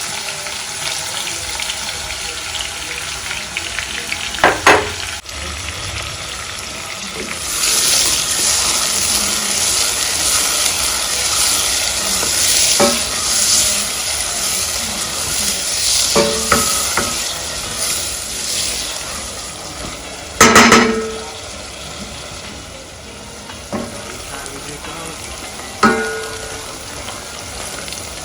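Meat, chopped onions and garlic sizzling in a cooking pot while being stirred. A metal spoon clanks against the pot about six times with a short ring; the loudest clank comes about two-thirds of the way through.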